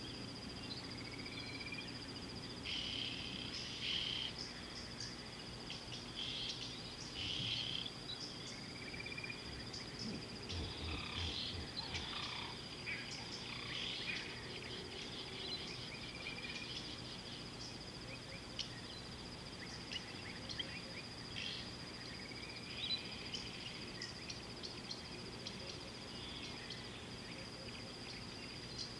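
Outdoor nature ambience: a steady high-pitched insect trill throughout, with scattered bird chirps and short whistled calls, over a faint low hum.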